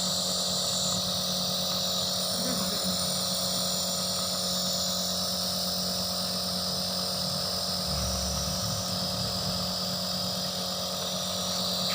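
Nebulizer compressor running with a steady hum and a hiss of air, turning liquid medicine into mist for a congested baby to breathe so the phlegm can loosen.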